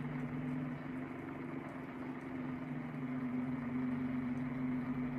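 Steady low hum of a small electric motor with two steady low tones, the sound of a tumbler cup turner spinning the cup.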